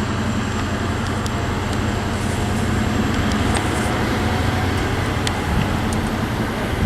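Diesel train engine running steadily with a low hum, over a haze of rail and station noise.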